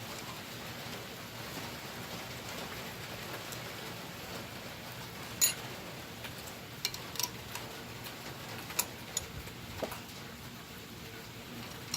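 A few sharp clinks from hand tools and engine parts being handled, scattered over about five seconds in the middle, over a steady rain-like hiss.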